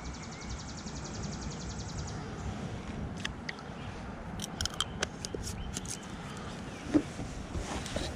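A fast, even run of fine mechanical ticks for about two seconds, then scattered sharp clicks and one louder knock about seven seconds in, over a steady low rumble.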